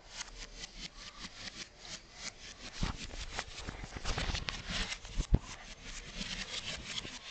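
A West Highland White Terrier's claws clicking and scrabbling rapidly on a tile floor as it dashes and jumps after a laser dot, with a few dull thumps, the loudest about five seconds in.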